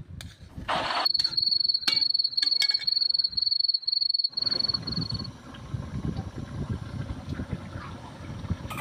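A cricket trills, a steady pulsing high-pitched chirp that starts about a second in and stops about five seconds in. Under it, a few sharp clicks come early, and a low crackling rumble of the coconut-milk sauce boiling in the pan takes over after the trill.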